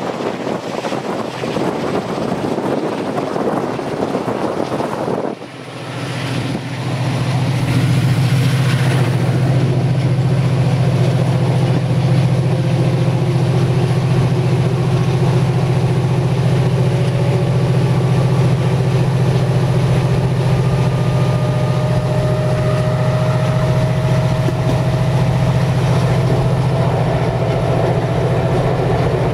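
Diesel locomotive hauling a passenger train, heard from an open coach window: wind rush at first, then about six seconds in a loud, steady low engine drone sets in and holds, with faint whines slowly rising in pitch as the train gathers speed.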